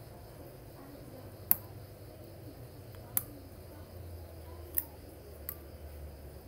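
Four sharp metallic clicks, unevenly spaced, the first the loudest, as a metal pick works against the aluminium spool of a spinning fishing reel while the drag clicker is being fitted.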